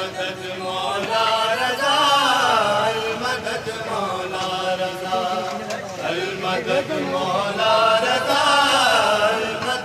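Male voice singing an Urdu devotional manqabat to Imam Raza in a chanting style, drawing out long, wavering held notes with no distinct words.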